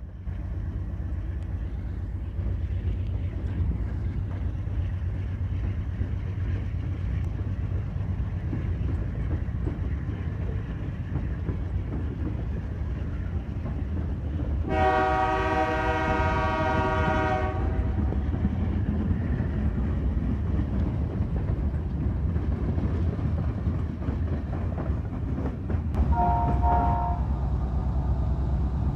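Freight train rolling past with a steady low rumble, while a diesel locomotive's multi-chime air horn blows one blast of about three seconds midway. A brief two-note tone sounds near the end.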